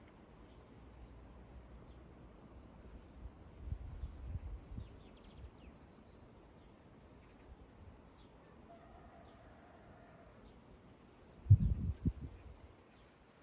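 Steady high-pitched insect trill, with a few faint bird chirps. Low thumps come about four seconds in, and louder low bumps near the end.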